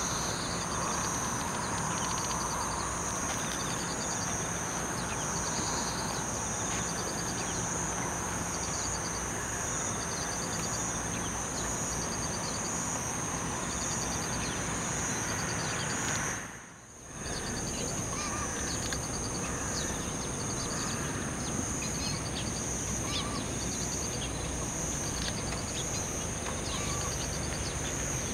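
Open-field ambience: birds chirping here and there over a steady high-pitched insect trill and a constant background hiss. About two-thirds of the way in, the sound dips away for a moment and comes back.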